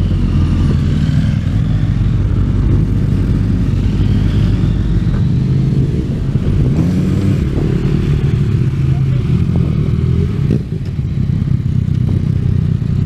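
Motorcycle engine running at low speed in slow traffic: a steady low drone with a brief rise in revs about halfway through.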